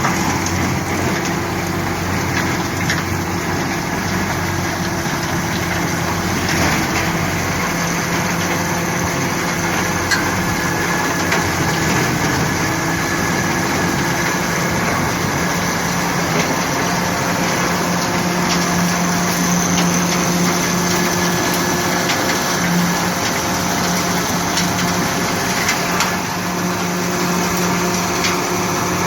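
Self-propelled lentil thresher running steadily: an engine's even hum under a continuous mechanical rattle and scattered small clicks.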